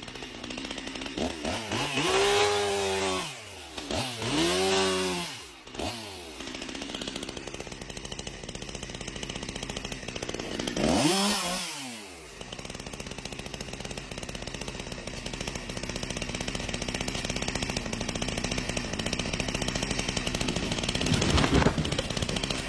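Chainsaw engine running, its throttle blipped three times so the pitch rises and falls, with a steady idle in between.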